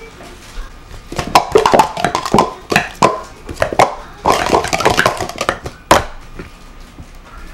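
Plastic sport-stacking cups clattering in a quick run of clacks as a 3-3-3 stack is upstacked into three pyramids and downstacked again. It starts about a second in and ends in one sharp clack near six seconds.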